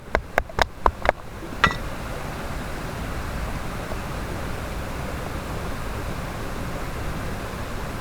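Mountain stream rushing steadily. It opens with a quick, even run of sharp clicks, about five a second, that stops about a second in, and one more sharp click follows shortly after.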